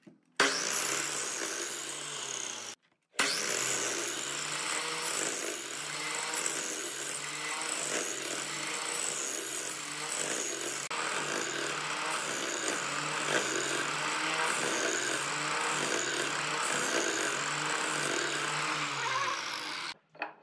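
Electric power tool working wood, running with a faint even pulsing. It breaks off abruptly once, about three seconds in, then runs on until it stops near the end.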